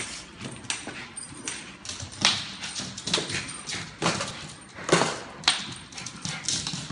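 Small bichon-poodle dog scampering on a hard floor: irregular clicking and scuffing of claws and paws, with a couple of louder knocks and scrapes.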